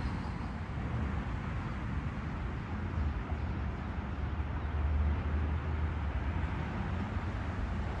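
Steady low outdoor rumble with a soft hiss above it, swelling a little about five seconds in; no bird calls stand out.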